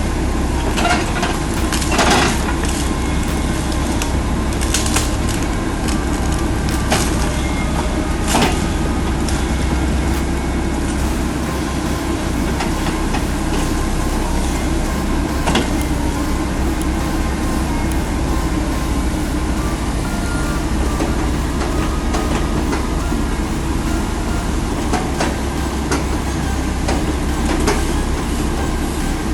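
Excavator's diesel engine running steadily under load while it rips out a tree stump, with scattered sharp cracks and knocks, several in the first ten seconds and a few more later.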